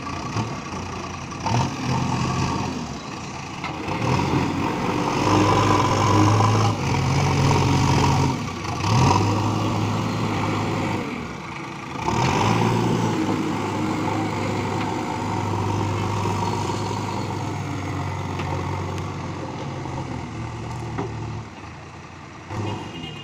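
JCB 3DX backhoe loader's diesel engine running under load, revving up and easing back several times while it moves soil with the front loader bucket.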